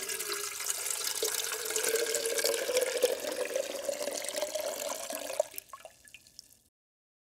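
Water pouring into a glass, the tone rising slowly as it fills; the pour tapers off about five and a half seconds in and stops.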